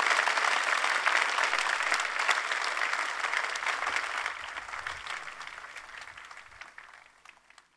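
Audience applauding, a dense patter of clapping that is loud at first and fades away over the last few seconds before stopping.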